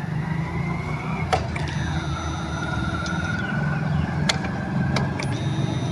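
A Honda SP 125 BS6 motorcycle's motor running on a bike that will not start: a steady low drone with a wavering whine over it, and a few sharp clicks.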